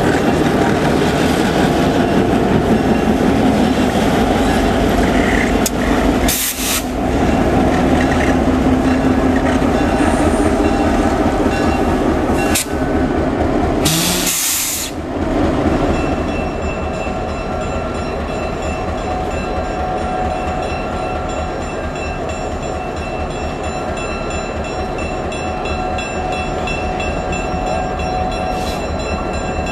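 EMD GP7 diesel-electric locomotive's 16-cylinder two-stroke diesel engine running as the unit moves through the yard. The sound breaks off briefly twice, about 6 seconds and 14 seconds in. From about 16 seconds on it settles to a somewhat quieter, steadier run with a constant hum.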